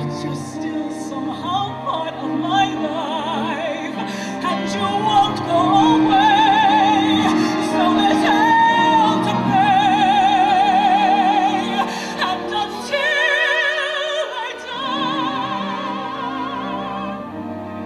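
A female singer holds long, sung notes with a wide vibrato over a steady instrumental accompaniment, in a live stage performance of a ballad.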